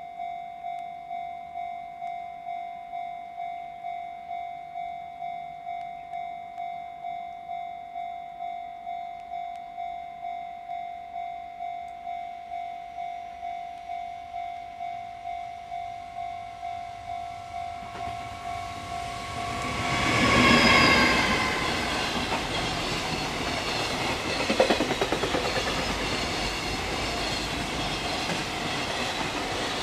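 Japanese level-crossing warning bell ringing in a steady repeating ding, about three strokes every two seconds. About eighteen seconds in, a train approaches, sounds its horn briefly and rushes past with loud wheel and rail noise and clatter over the rail joints, drowning out the bell.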